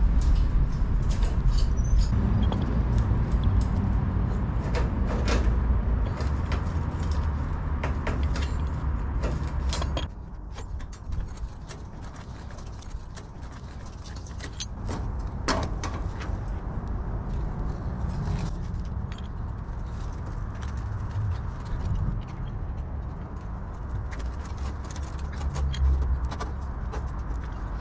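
Steel rebar and tie wire clinking and clicking irregularly as a reinforcement cage is tied together by hand, over a steady low rumble that drops about ten seconds in.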